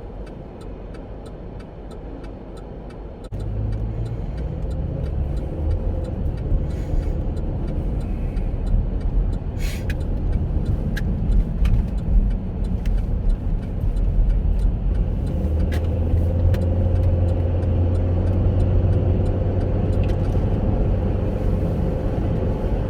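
Road and engine noise inside a Chevrolet Captiva's cabin while it is driving: a steady low rumble that gets suddenly louder about three seconds in, with occasional light clicks.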